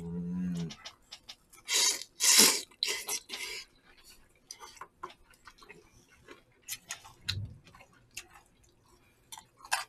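Noodles slurped from bowls of spicy jjamppong soup: a few loud wet slurps about two to three and a half seconds in, then scattered soft clicks and mouth sounds of eating.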